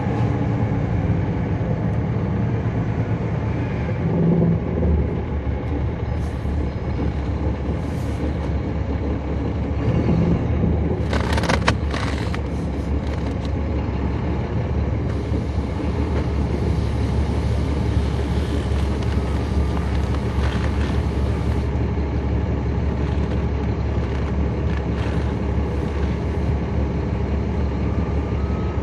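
Caterpillar C13 ACERT diesel engine of a NABI 40-SFW transit bus running with a steady low drone, heard from inside the bus. A few sharp clicks come about eleven seconds in, and a hiss rises for several seconds midway.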